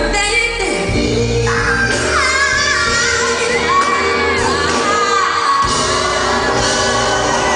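A soul band playing live, with female voices singing a gliding melody over steady bass and band, heard from the audience in a large concert hall.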